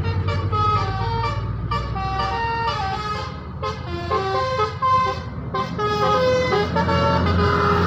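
Bus 'telolet' multi-tone horn of the Basuri type playing a quick tune of stepped notes, over the low rumble of the bus engine.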